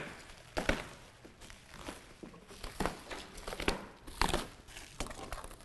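Clear plastic shrink wrap being pulled off and bunched up by hand, crinkling and crackling in irregular bursts.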